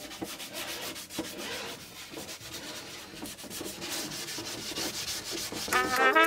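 Cardboard box scraping and rubbing against a metal-framed handcart as it is pushed into place, a dense run of small scrapes. Brass music comes in near the end.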